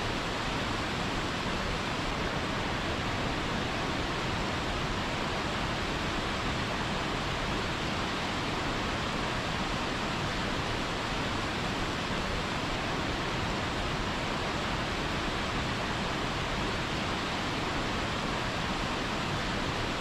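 A waterfall's steady, even rush of falling water.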